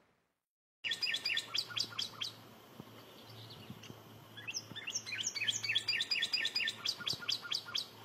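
Northern cardinal singing: a quick run of repeated down-slurred whistles starting about a second in, then after a short lull a second, longer run of the same notes.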